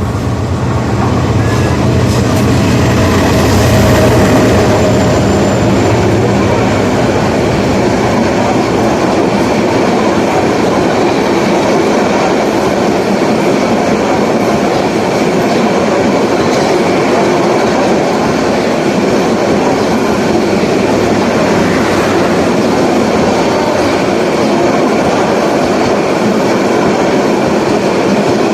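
A train passing close by, loud. A low engine hum in the first few seconds gives way to a long steady rumble of cars rolling over the rails.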